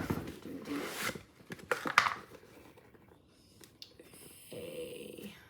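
Shoe packaging being handled, with crinkling and tearing of paper in a few short bursts, the loudest about two seconds in, then quieter.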